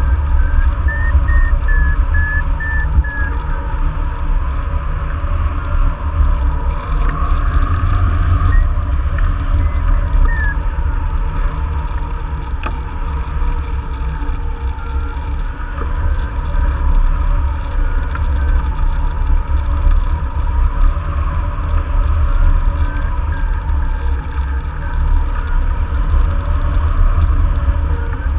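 Airflow buffeting a wing-mounted camera's microphone on a hang glider in flight, a steady low rumble. Over it a flight variometer beeps in quick runs that rise and fall in pitch, signalling climb in thermal lift; the beeping is heard at the start, around ten seconds in, through the middle and again near the end.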